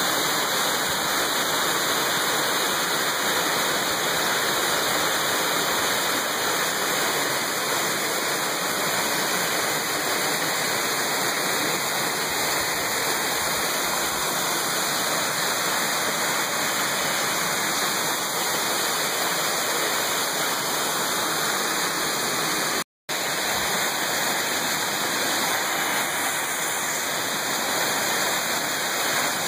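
Steady rushing of water pouring over rocks in a mountain stream cascade, even and unbroken except for a brief cut-out about three-quarters of the way through.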